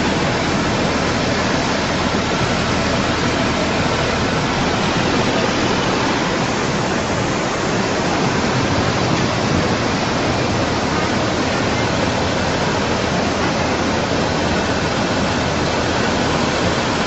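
Fast-flowing floodwater rushing steadily, an even, unbroken noise of moving water.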